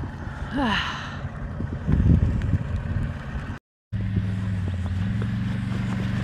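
Vehicle engine running steadily, with a short falling voice sound near the start. After a brief break, a steady engine hum whose pitch steps up slightly about five seconds in.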